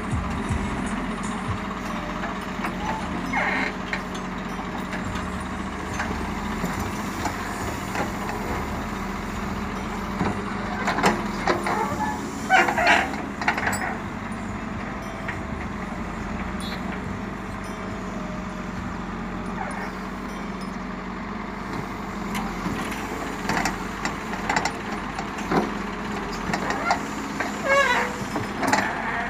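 CAT backhoe loader's diesel engine running steadily while its backhoe digs soil, with bursts of scraping, squealing and clanking from the bucket and boom about halfway through and again near the end.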